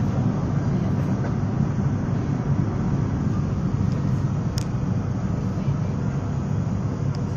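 Steady low rumble of road vehicles, with one faint click about four and a half seconds in.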